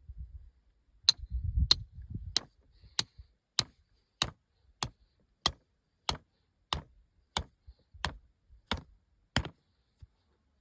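A hammer driving stakes into the ground: about fourteen steady, evenly spaced blows, roughly one and a half a second, each with a short high ring.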